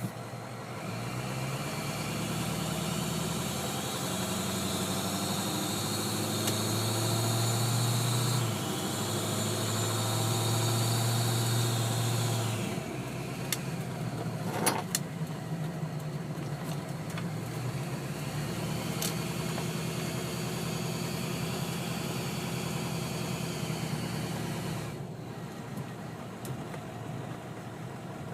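Ford 6.0L Power Stroke V8 turbo-diesel running, with a steady airy whoosh-hiss over the engine note: the abnormal turbo noise that the owner takes for air escaping somewhere on the intake side. The engine is stronger for the first half, then drops back, and the hiss fades near the end.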